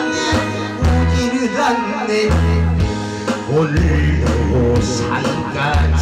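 A male performer singing into a microphone over a loud recorded backing track with held bass notes.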